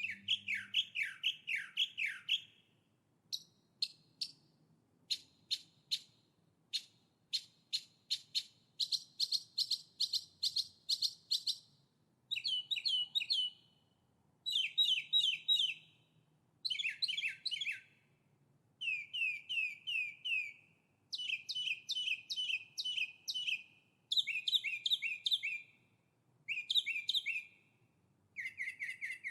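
Songbird singing: short phrases of rapid repeated chirping notes, many sliding downward, each phrase one to three seconds long with brief pauses between.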